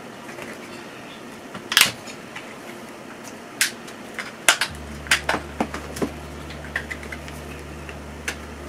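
Scattered small plastic clicks and taps as a smartphone is handled and pried open with a plastic pick. A low steady hum comes in about halfway through.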